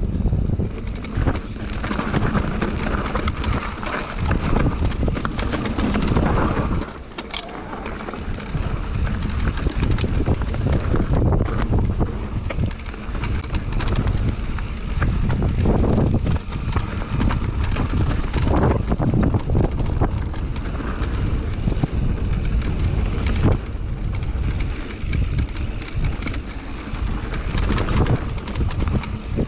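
Mountain bike ridden downhill on a dirt trail: wind buffeting the microphone, tyres rumbling over the ground, and the chain and frame rattling over bumps. The noise dips briefly about seven seconds in.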